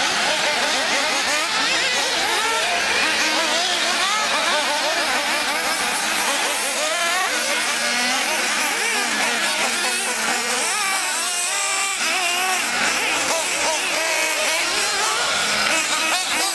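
Several 1/8-scale nitro RC buggies racing, their small two-stroke glow engines screaming at high revs and overlapping. Each engine's pitch rises and falls as the cars accelerate down the straights and brake into the corners.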